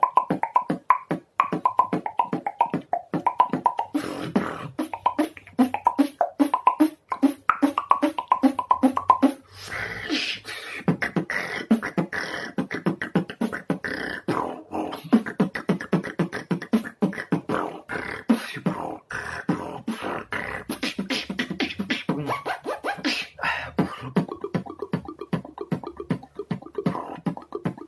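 Beatboxing built on tongue rolls and tongue flicks: fast rattling pulses of the tongue, in places with a hummed pitch over them. The pattern changes about 4 s in, again around 9 s, and near the end.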